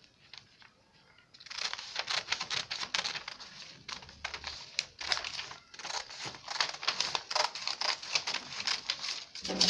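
Scissors cutting through a large sheet of pattern paper, the paper crinkling and rustling as it is handled, starting about a second and a half in.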